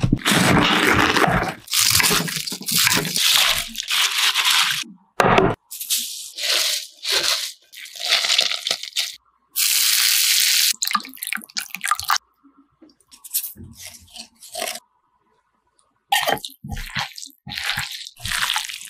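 Food-preparation sounds: crisp crunching and tearing of fresh cabbage leaves in the first few seconds, then liquid poured into a bowl of chili flakes and seasonings for about a second, then wet squishing as the sauced cabbage is tossed by hand in a glass bowl.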